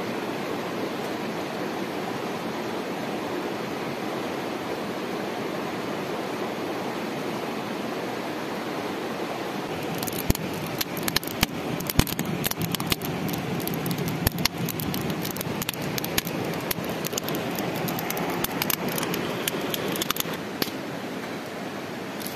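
Steady rushing background noise. About halfway in, a wood fire of split kindling and bark starts crackling and popping irregularly in a small stone fireplace, and the crackling dies away shortly before the end.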